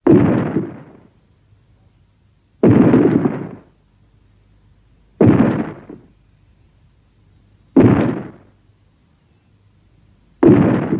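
Five short, harsh Tyrannosaurus rex sound-effect blasts, evenly spaced about two and a half seconds apart. Each starts suddenly and fades within about a second.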